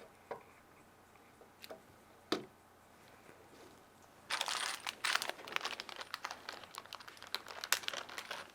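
A few light clicks and taps, then from about four seconds in a dense crinkling and rustling of a plastic bag being handled.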